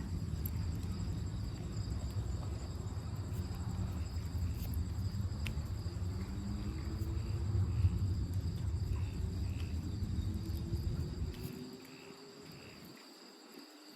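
Crickets or similar night insects trilling steadily in high, even tones, over a low rumble that drops away about two-thirds of the way through.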